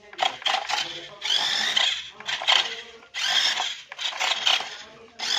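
Small electric motor of a toy remote-control car whirring in short bursts, about three times, as the throttle is worked, with a few light clicks in between.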